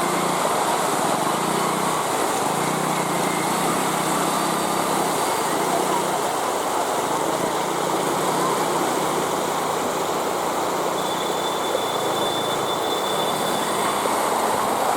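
Motorbike and traffic engines running through flood water under a steady wash of noise, with a thin high tone for a few seconds near the end.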